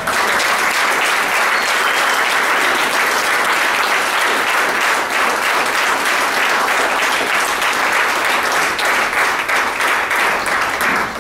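An audience of about seventy people applauding steadily.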